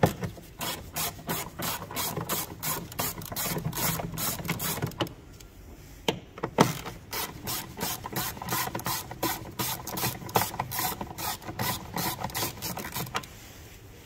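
Ratchet with a T30 Torx bit clicking steadily, about four clicks a second, as it winds out a door-card bolt. The clicking breaks off about five seconds in with a couple of knocks, then a second run of clicking follows on the next bolt and stops about a second before the end.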